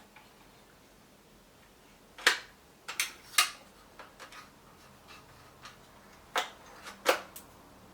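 Sharp plastic clicks and knocks, about five loud ones at irregular spacing with fainter taps between, from handling the toy gel ball blaster and its compartments.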